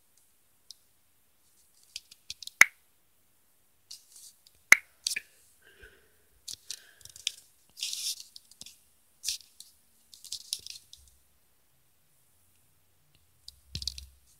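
Phone handling noise: two sharp clicks about two seconds apart, then scattered bursts of faint rustling and scraping as the phone is tapped and held.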